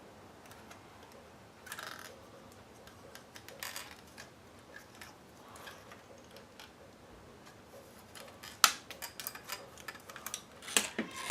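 Small clicks and scrapes of the plastic and metal parts of a car stereo head unit being handled and pried apart. One sharp click comes about three-quarters of the way through, then a quick run of clicks near the end as a part comes loose.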